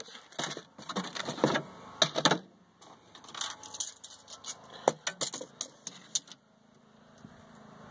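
Irregular clicks, knocks and rattles of things being handled inside a small fridge compartment, stopping about six seconds in.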